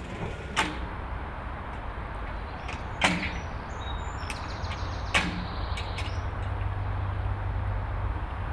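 Sentinel steam locomotive running with its train: a steady noise with a low hum, broken by three sharp knocks about two to three seconds apart.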